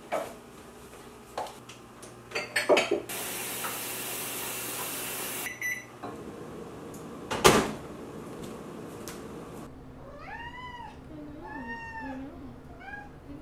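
Kitchen handling sounds: cupboard and door clicks, then a microwave oven running for a couple of seconds, stopping with short beeps, and a loud knock about halfway through. Near the end a cat meows three times.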